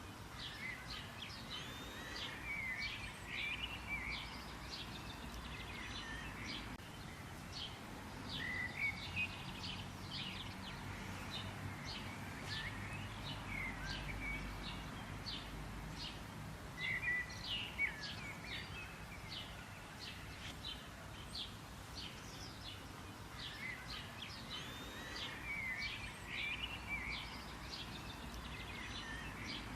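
Birds chirping and twittering: many short, high chirps in quick succession, with curling warbled notes between them, over faint background hiss.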